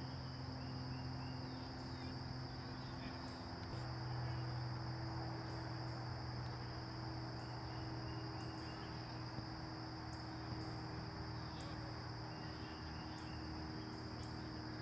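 Steady high-pitched insect buzz over a low, steady hum.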